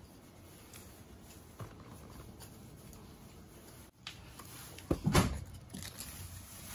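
Faint patter of a Shiba Inu puppy's paws on a wooden floor as it carries a plush toy, with a brief loud knock and rustle about five seconds in.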